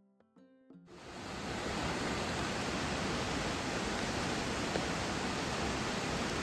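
Steady rush of fast-flowing water, as of a river over rapids, swelling in about a second in and then holding even.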